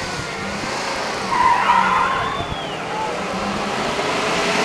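Two pre-1960s hot rods launching side by side in a drag race, their engines running under acceleration. A brief high tire squeal rises and falls about a second and a half in.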